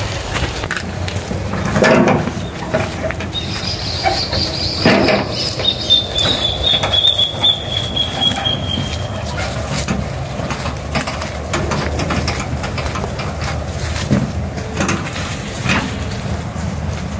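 Pieces of wet firewood knocking and thudding as they are handled and set down, with two heavier thuds about two and five seconds in. A thin high whistle, falling slightly in pitch, sounds for several seconds near the start.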